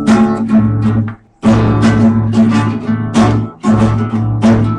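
Guitar music: strummed chords with a steady bass line, breaking off briefly about a second in before carrying on.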